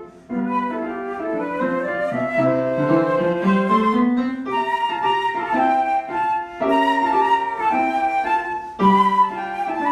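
Instrumental background music, a flute melody over lower accompanying notes.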